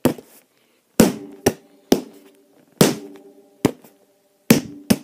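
Sharp knocks struck by hand on a hollow object, about eight in an uneven beat, each with a brief ringing tone.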